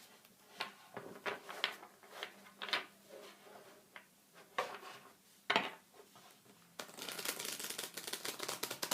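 Tarot cards being shuffled by hand: scattered single snaps and taps of the cards, then a dense, fast run of card clicks from about two thirds of the way through.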